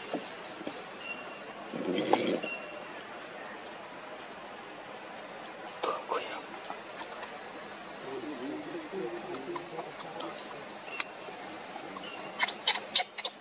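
Steady, high-pitched drone of insects, with a few sharp clicks near the end.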